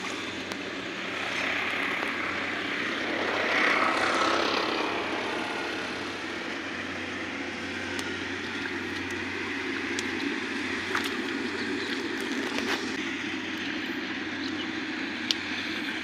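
Steady engine drone of a rice combine harvester working the field, swelling louder for a couple of seconds around three to four seconds in. A few small clicks sound in the second half.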